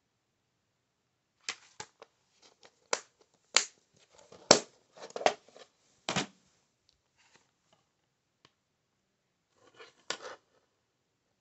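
Plastic DVD cases being handled: a string of short, sharp clicks and clacks as a case is opened or shut, picked up and set down on a wooden floor, with quiet gaps between them.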